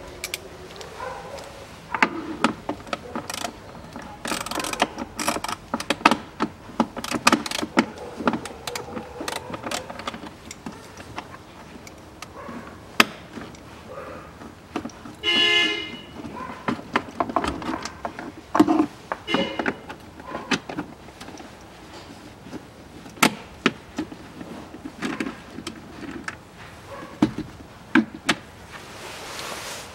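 Irregular sharp clicks, knocks and plastic rattles of a hand socket driver working the self-tapping screws that hold a car's plastic glove box. About halfway through comes one short pitched tone, under a second long.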